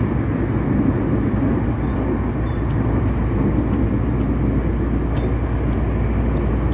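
Cabin noise of a KRL Commuter Line electric train running at speed: a steady rumble with a low hum, and a few faint ticks.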